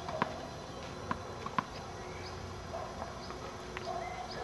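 Tennis ball bounced on a clay court before a serve: a few short, sharp knocks, irregularly spaced.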